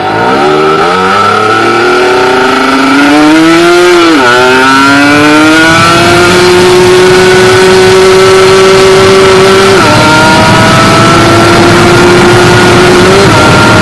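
Kawasaki Ninja 150RR two-stroke single-cylinder engine, ported and polished, at full throttle from first gear: it revs up, drops in pitch at a gear change about four seconds in, climbs again and then runs high and steady, with smaller drops at further shifts near ten and thirteen seconds. Loud wind rushes over the microphone throughout.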